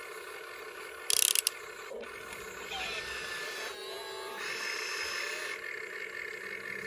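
Small electric gear motors of a remote control toy excavator whirring, their pitch and tone shifting every second or two as different movements run. A short, loud burst of hissing noise comes about a second in.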